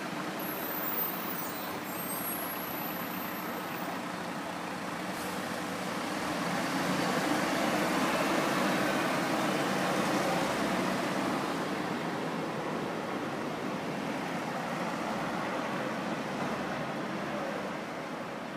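Road traffic: a vehicle passing, its steady rumble building to loudest about midway and then easing off.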